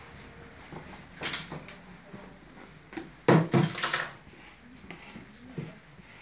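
A few sharp knocks and a brief clatter of objects being handled, the loudest cluster a little over three seconds in.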